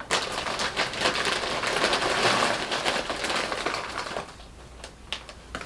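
Crinkling of a clear plastic bag as small scented pine cones are rummaged and pulled out of it, with dry rustles and small clicks. It dies down about four seconds in.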